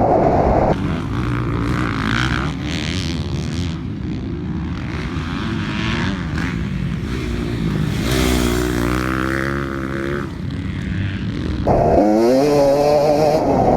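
Kawasaki KX250 two-stroke motocross engine under hard throttle at the start. It then runs softer for most of the middle, revs rising and falling, and pulls loud again near the end with a rising pitch.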